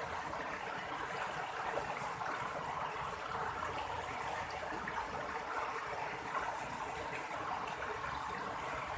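River water flowing steadily over a shallow bed, a constant gentle rushing and babbling.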